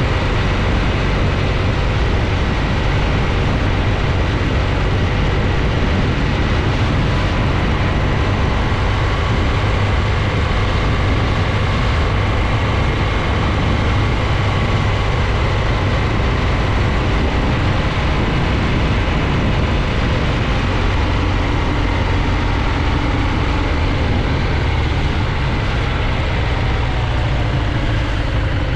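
Heavy, steady wind noise on the microphone of a BMW R1200GS Adventure motorcycle on the move, with the bike's boxer-twin engine running underneath.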